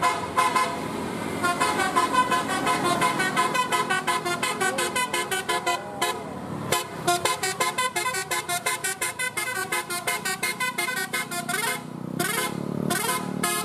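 Indonesian telolet bus horn, a Basuri multi-note musical horn, playing a fast tune of short horn notes with brief breaks in between.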